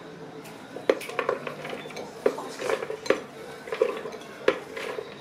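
Light knocks and clinks of a white ceramic bowl against the clear plastic bowl of a manual food chopper as chopped celery and parsley are tipped and scraped in. There are about eight irregular knocks, each with a short ring.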